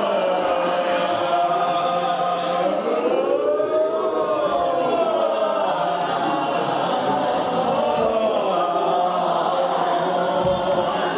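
A group of dancers' voices holding long, overlapping tones together in a continuous chant, the pitches sliding slowly up and down.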